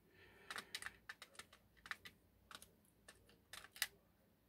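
Small metal parts of a gutted Abloy Exec disc-detainer lock being handled and set down on a parts tray: a dozen or so light, irregular clicks and taps, the loudest a little before the end.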